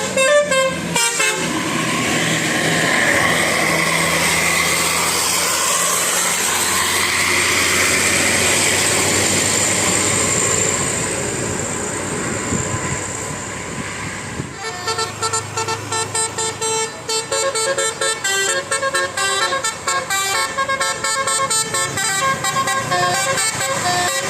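A bus's basuri musical horn plays a short burst of notes, and then a long noisy rush with a low engine hum follows, like a vehicle going past. About fourteen seconds in, the horn starts again with a quick run of changing notes, a tune.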